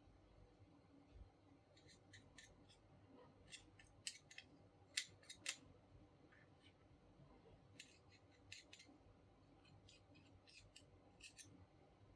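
Faint, sharp snips and clicks from small hand-tool work, coming in irregular clusters; the loudest are about four to five seconds in.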